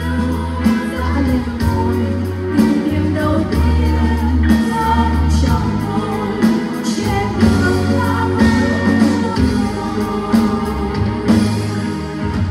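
A singer with a live band: a sung melody over a moving bass line and a regular drum beat.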